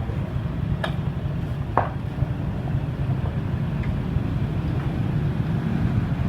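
Steady low rumble of passing motor traffic, with two sharp taps about a second apart near the start.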